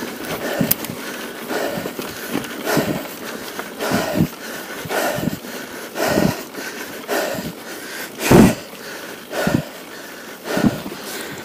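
A mountain-bike rider breathing hard and rhythmically from exertion, about one loud breath a second, the strongest a little past the middle, over a steady rustle of tyres on a dirt trail.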